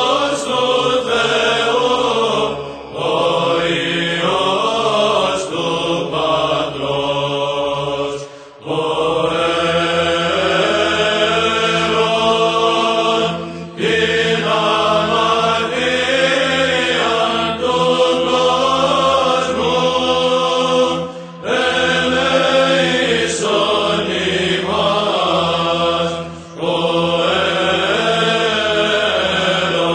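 Greek Orthodox Byzantine chant, sung in long melodic phrases of several seconds, each separated by a brief pause.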